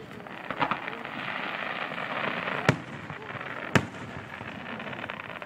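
Aerial firework shells bursting: a quick pair of bangs about half a second in, then two single sharp bangs about a second apart in the middle, over a steady noisy background.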